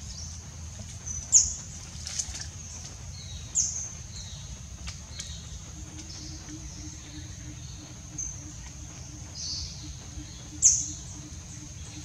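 Tropical forest ambience: a steady high-pitched insect drone, with a few sharp bird chirps, three of them loud. From about halfway, a low pulsing call repeats about twice a second.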